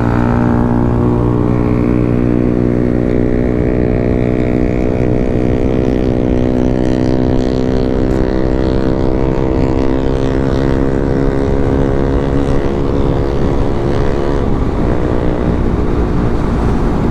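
Suzuki GSX-S150's single-cylinder four-stroke engine running at steady revs while the bike is ridden fast, with wind rush. The note shifts about thirteen seconds in.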